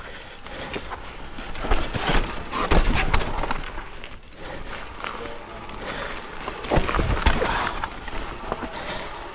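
Mountain bike descending a rocky trail at speed: tyres crunching over dirt and stones and the bike rattling, with hard knocks as it drops over rocks, loudest about two to three seconds in and again about seven seconds in, and a rush of air on the handlebar camera's microphone.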